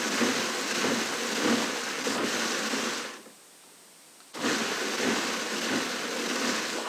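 Hand-cranked Louet drum carder turning as alpaca fiber is fed onto its carding cloth: a steady scratchy hiss, which drops away for about a second just past the middle and then resumes.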